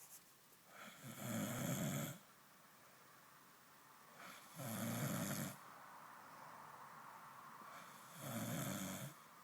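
Snoring: three slow, regular snores about three and a half seconds apart, each lasting about a second.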